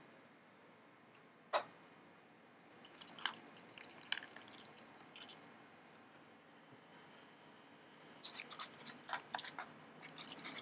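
Wire whisk stirring a damp, crumbly rice- and wheat-flour mix in a stainless steel bowl, its wires scraping and ticking against the metal in two bouts with a pause midway. A single sharp knock comes about one and a half seconds in.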